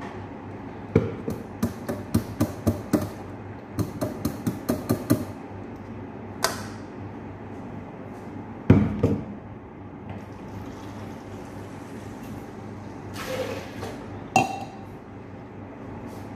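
Metal mesh strainer tapped against the rim of a glass jar: two quick runs of sharp knocks, about six or seven each, to shake the juice through. A single heavier knock follows a few seconds later, then a short rustle and one more click near the end.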